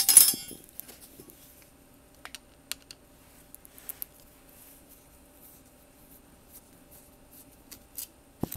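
A short, loud metallic clatter at the start, then scattered small clicks and scrapes of a screwdriver tip working the side screws of an LCD panel's steel shroud.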